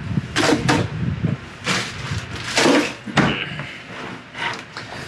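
A series of about six short knocks and clatters from things being handled on a kitchen counter, spaced irregularly.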